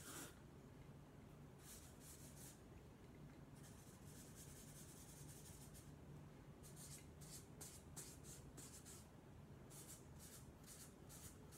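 Faint strokes of a Sharpie felt-tip marker drawn across presentation-pad paper: a few short strokes, one longer continuous stroke about four seconds in, then a quick run of short strokes.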